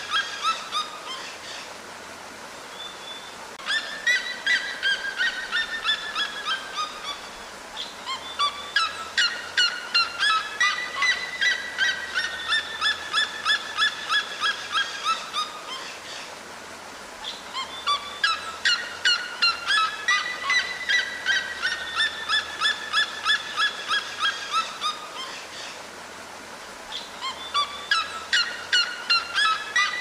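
Red-legged seriemas calling: long bouts of rapid yelping notes, several notes a second, each bout rising in pitch and then falling away over several seconds. The bouts repeat about four times with short pauses between.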